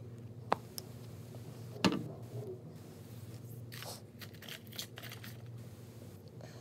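Craft materials handled on a wooden tabletop: a few light taps and one louder knock about two seconds in, then a paper card scraping and rustling as it is slid and picked up.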